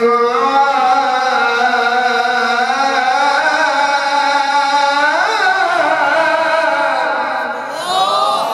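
A man's voice reciting the Qur'an in melodic tajweed style, holding one long note, with a quick rising and falling turn about five seconds in and a run of fast turns near the end.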